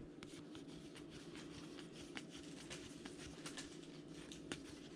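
Faint scattered clicks and light ticks of trading cards being handled and flipped through at a table, over a low steady hum.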